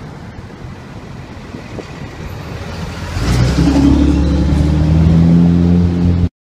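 Diesel engine of a heavy roll-off truck passing close by, over street traffic noise. About three seconds in its low engine note swells to a loud, steady drone, which cuts off suddenly near the end.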